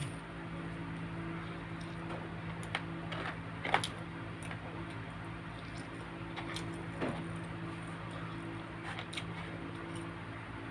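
Occasional short smacks and clicks of a man eating chicken with his fingers, picking scraps and bones off a plate, over a steady low hum.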